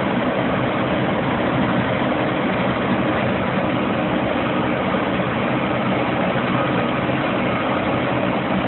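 Diesel engine of a Vermeer HG6000 horizontal grinder running steadily at a constant speed. The sound cuts off suddenly at the end.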